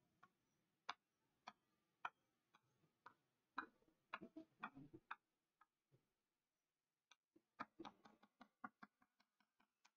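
Chalk striking and scratching on a chalkboard in short hatching strokes: faint, sharp ticks, about one every half second at first, a pause about five seconds in, then quicker ticks several a second near the end.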